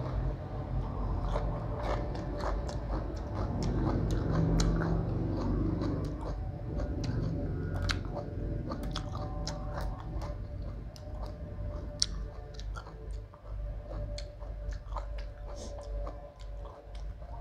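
A person chewing and crunching mouthfuls of rice-noodle salad wrapped in raw lettuce and cabbage leaves, with many small wet mouth clicks.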